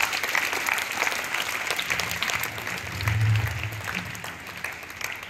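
A group of children applauding, a dense patter of hand claps that eases off toward the end, with a brief low hum about three seconds in.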